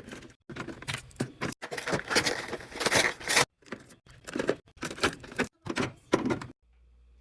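Clattering and rustling of containers and packages being handled and set into a fridge, in short pieces that cut off abruptly one after another.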